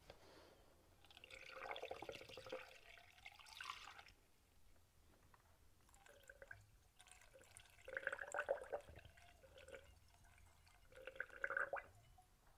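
Seafoam engine cleaner poured from a measuring jar through a hose into an engine's spark-plug holes, trickling and gurgling faintly in three separate pours with short pauses between.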